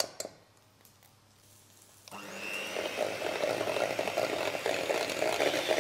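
Electric hand mixer switched on about two seconds in, then running steadily with a constant hum, its whisk beaters whipping a thick cream and egg mixture in a steel bowl.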